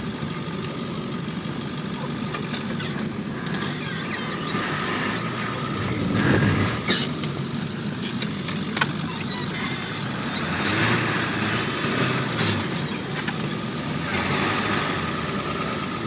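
A 4x4 truck's engine and driving noise heard from inside the cab as it ploughs through snow, steady throughout, with scattered short knocks and clatter.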